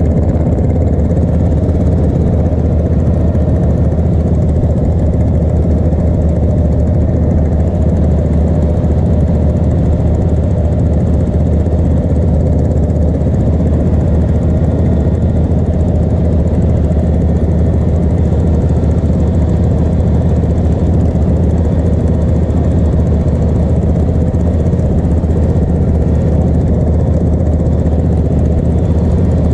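Racing ride-on lawn mower engine idling steadily and loudly, with no change in revs.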